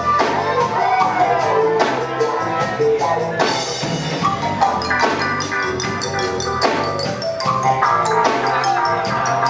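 Live reggae band playing an instrumental passage on electric guitars, bass guitar and drum kit, with a steady run of drum hits.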